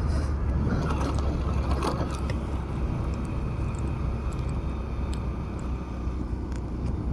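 Steady low hum of a motorcycle engine, with a few light clicks as a helmet lock is fastened.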